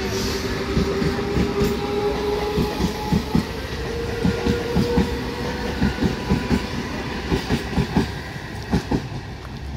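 An Eastern Railway EMU local train's coaches roll past at close range, the wheels clacking over the rail joints in a quick, uneven run of knocks. A steady hum runs under it for the first three seconds or so, and the sound eases off near the end.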